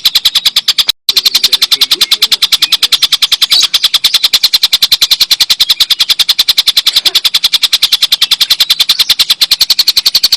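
A tengkek buto kingfisher giving its long cackling call ('ngekek panjang'): a loud, fast, unbroken string of sharp high notes, about eight a second, with one short break about a second in.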